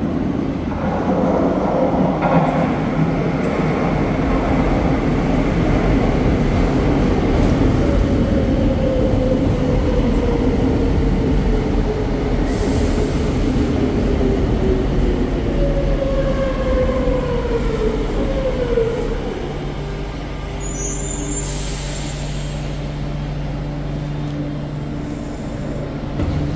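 Madrid Metro Line 6 train arriving at an underground station: heavy running noise as it pulls in, then a falling whine and wheel squeal as it brakes. It stops about twenty seconds in and sits there with a steady hum.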